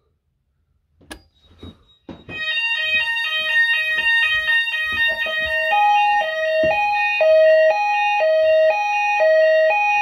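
Fire alarm voice-evacuation ceiling speaker sounding its alert tone, which starts about two seconds in after a click. The tone is a loud, chime-like pattern of steady notes that steps between a higher and a lower pitch about twice a second. It is the alert that comes before the spoken evacuation message, set off by the manual call point.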